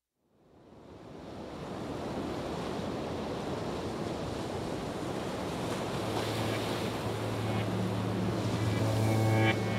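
Ocean surf fading in, a steady wash of waves. About six seconds in, a low held music note enters beneath it, and more sustained notes join near the end.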